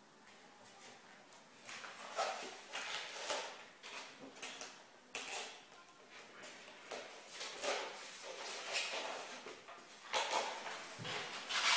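Irregular rustling, scraping and light knocks of packaging being handled during an unboxing.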